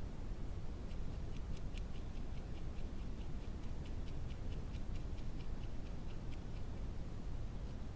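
A European badger scratching its fur with its claws while grooming: a quick run of dry scratches, about five a second, starting about a second in and stopping after about six seconds, over steady low background noise.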